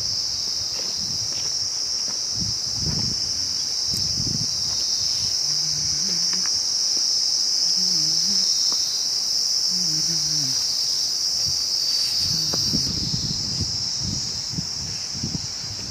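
A steady, high-pitched chorus of insects in summer vegetation, with gusts of wind buffeting the microphone now and then, most of all near the end.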